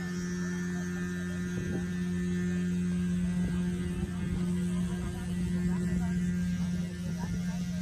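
Steady electric hum of shrimp-pond aeration machinery running. A fainter, higher tone above it drops away about six and a half seconds in.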